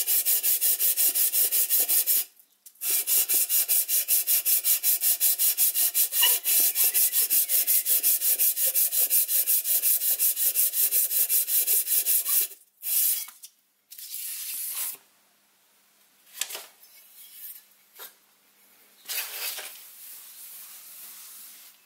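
Cast-iron Stuart S50 soleplate casting rubbed back and forth on emery paper over a surface plate in fast, even strokes, lapping its base flat to find and take down high spots. There is a short break about two seconds in, and the strokes stop about twelve seconds in, followed by quieter scattered rubbing as a cloth wipes the plate.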